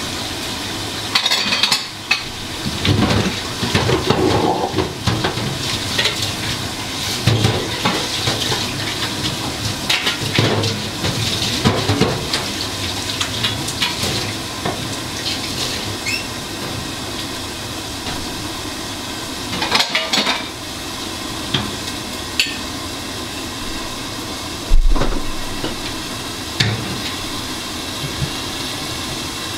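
Pots, dishes and metal utensils clinking, scraping and knocking over a steady hiss, with one sharp knock late on as the loudest sound.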